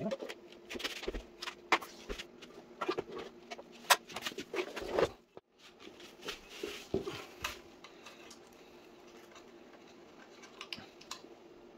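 Hands working on an electric scooter's wiring and plastic parts: scattered small clicks, taps and rustles of cable, connectors and plastic, busy for the first few seconds, then sparser and fainter after a brief gap about five seconds in.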